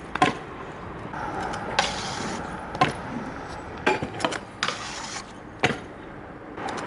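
Stunt scooter wheels rolling on asphalt, broken by several sharp clacks of the deck and wheels hitting the ground as flat-ground tricks are landed.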